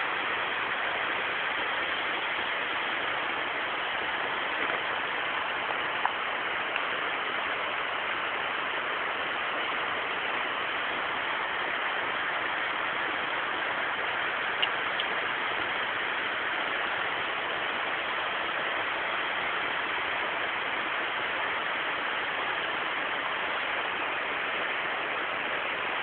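A steady, even hiss with no change throughout, broken by two or three faint clicks.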